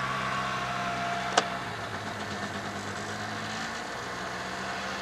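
Vehicle engine running steadily, with a single sharp click about a second and a half in.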